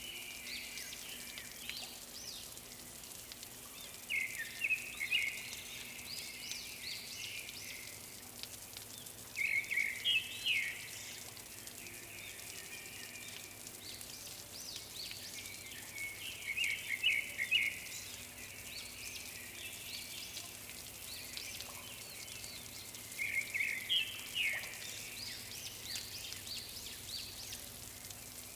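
Birds calling in four bursts of quick chirps, each a second or two long and about six to seven seconds apart, over a steady hiss of outdoor ambience.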